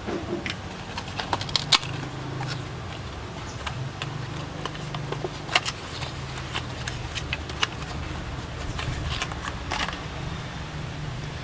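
Cardboard dongle box being opened and handled, with scattered light clicks, taps and rustles as the dongle is taken out, over a steady low hum.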